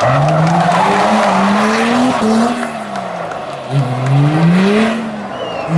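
Drift car's engine revving up and falling back in repeated sweeps under throttle, over the hiss and squeal of the rear tyres sliding sideways.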